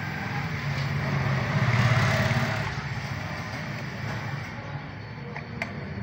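Refrigerator compressor running with a steady low hum while R134a refrigerant is charged into it. A rushing noise swells and fades about two seconds in.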